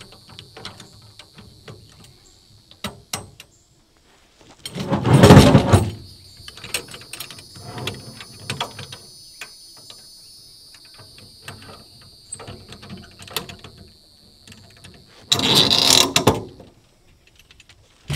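Steel-framed game cart being handled and shifted in a pickup bed: scattered clicks and rattles of the metal frame and wheels, with two louder scraping clatters lasting about a second each, about five and fifteen seconds in. A steady high-pitched drone runs in the background.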